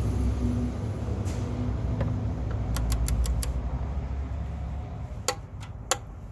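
Two sharp clicks of a click-type torque wrench reaching its setting on the oil drain plug, a little over a second before the end, after a few lighter clicks of the wrench being worked. A steady low rumble runs underneath and fades after about five seconds.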